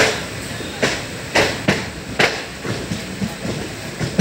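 Passenger train wheels clattering over rail joints, a quick uneven run of sharp metallic clacks over the steady rumble of the moving coach.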